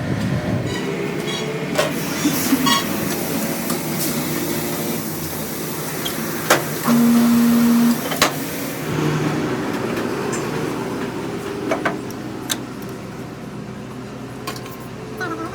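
Workshop machinery, likely a lathe, running steadily, with scattered sharp metallic clicks and knocks and a loud one-second buzz about seven seconds in.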